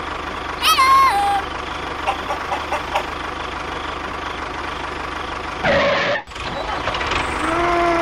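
Tractor engine running steadily. A short high sound falls in pitch about a second in, a louder burst comes near six seconds and cuts off sharply, and another short pitched sound comes near the end.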